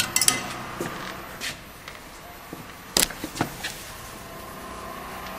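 Steady hum of packaging machinery with a few sharp metallic clicks and knocks, the loudest about three seconds in.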